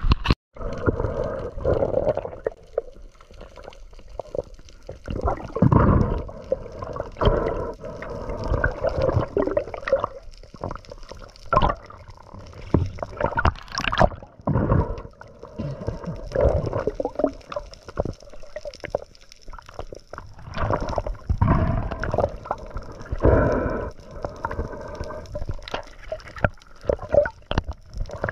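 Water gurgling and sloshing in irregular surges every second or two.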